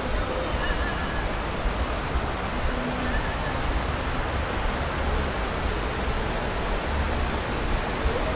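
Steady rushing of running water, an even noise that keeps on without breaks.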